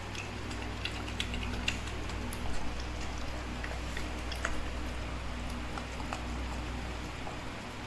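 Pit bull eating, giving scattered, irregular small clicks and crunches over a steady low hum.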